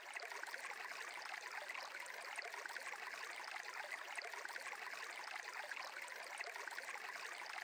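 Faint, steady running water like a flowing stream, an even hiss with no distinct splashes or drips.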